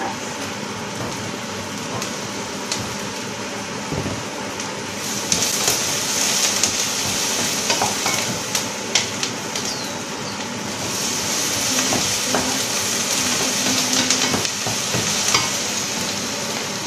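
Diced potatoes being stirred in a stainless pot on the stove with a spoon: clinks and scrapes against the pot over a steady cooking hiss, which swells louder about five seconds in and again about eleven seconds in.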